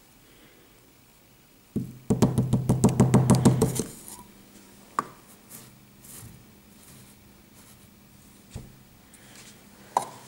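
Rapid tapping on an upturned hollow plastic sand mold, about seven knocks a second for some two seconds, the usual way of loosening kinetic sand from the mold before lifting it off. A few single light knocks of plastic follow.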